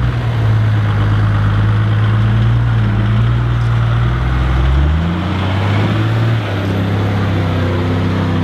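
Chopped LandCruiser 4WD's engine running at low revs as it crawls through a muddy rut, with the engine note dropping about five seconds in.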